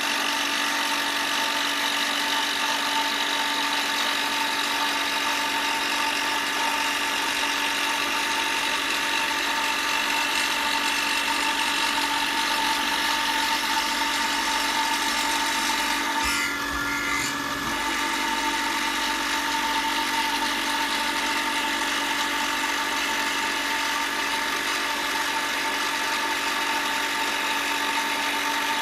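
A power tool's motor running steadily with a constant whine of several tones over a noisy hiss. It changes briefly about two-thirds of the way through, then carries on.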